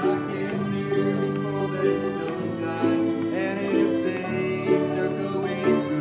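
Traditional Irish session band playing a slow song tune together on fiddle, accordion, banjo, tin whistle and flute, with long held notes.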